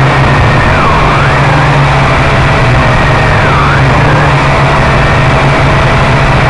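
Quadcopter's motors and propellers running loud and steady, heard on its own onboard camera, with a whine that dips briefly in pitch twice, about a second in and again about three and a half seconds in.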